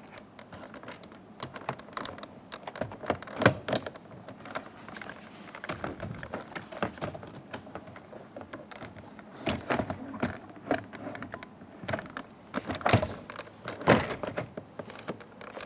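Irregular plastic clicks, taps and knocks as a pickup door's interior trim panel is handled and worked onto the door, with a few louder knocks spread through.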